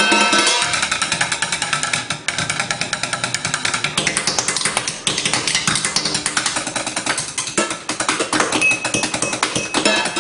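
Fast drumming with chopsticks on kitchen pots, pans and utensils: a dense run of quick strikes, with the struck pans ringing under them.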